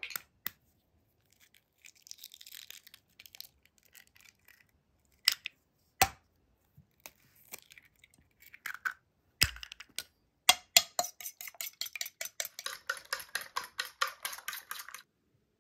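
Eggs tapped and cracked on the rim of a bowl, a few sharp knocks, then, about ten seconds in, a fork beating the eggs against the bowl in quick, even clinks, about six or seven a second, stopping shortly before the end.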